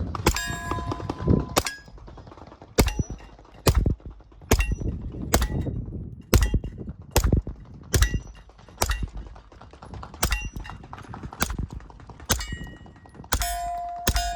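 SilencerCo Maxim 9 integrally suppressed 9mm pistol firing a string of about fifteen shots, roughly one a second, with several hits ringing the steel target plates.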